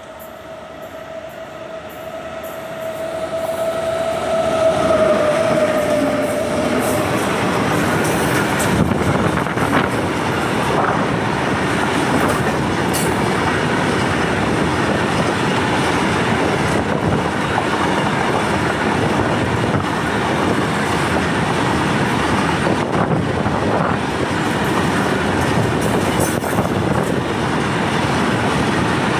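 Twin WAG-9HC electric locomotives sounding one long horn note as they approach; the note swells and drops slightly in pitch as they pass about five or six seconds in. Then a train of BTPN oil tank wagons runs by at speed with a steady rumble, wheel clatter and occasional sharp knocks.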